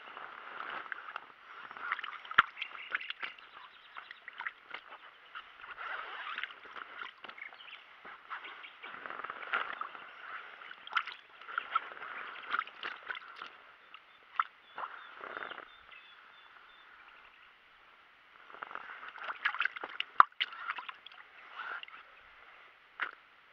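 Water sloshing and splashing in a flooded carp sling as a common carp is held in it and shifts about, in irregular bursts with a short lull past the middle. Two sharp knocks stand out, one about two seconds in and the louder one near the end.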